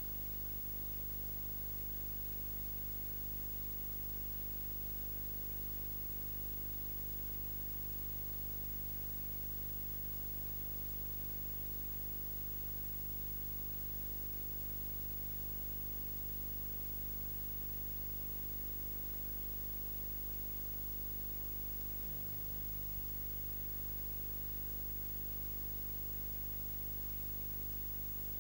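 Steady electrical hum and hiss with no live sound: the camcorder's microphone was unplugged, so only the recorder's own hum and noise were captured. There is one brief faint glitch a little over twenty seconds in.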